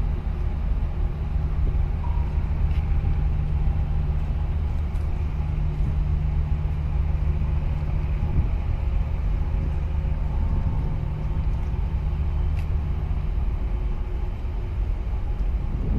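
Low, steady drone of the 23,000 TEU container ship HMM Hamburg's engines as it moves off under way, with a deep hum whose upper tone drops out about thirteen seconds in.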